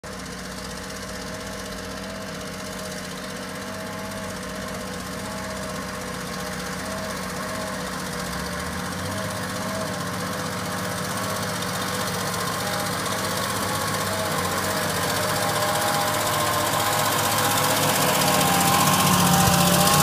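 Massey Ferguson 3670 tractor engine working steadily under load while ploughing, getting louder as it approaches. The exhaust is faulty and makes the tractor loud; it was later repaired.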